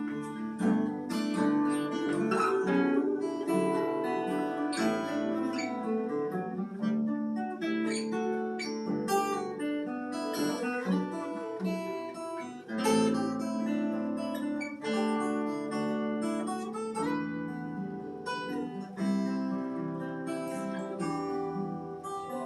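Instrumental break of a live acoustic song: acoustic guitar picking and strumming over bass, with no vocals.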